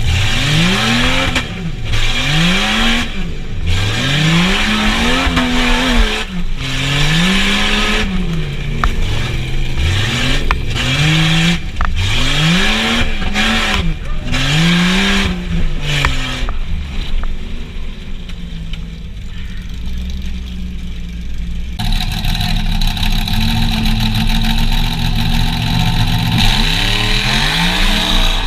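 A truck engine revving hard and dropping off again and again, about one surge every second and a half, with a quieter spell after about 16 seconds and a steadier engine note from about 22 seconds in.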